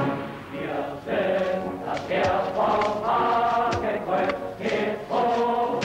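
A choir singing together in short, held phrases.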